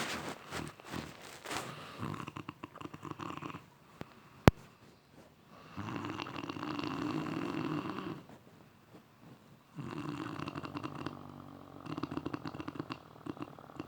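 An elderly woman snoring in her sleep: rough, rasping snores, irregular at first and then three long, drawn-out ones in the second half. A single sharp click about four and a half seconds in.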